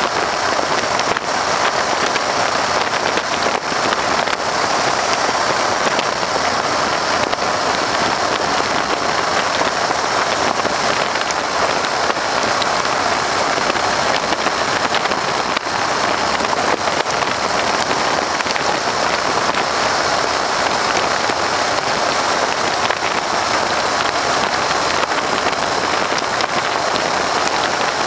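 Steady rush of wind and engine noise in the open cockpit of a PT-13 Stearman biplane in flight.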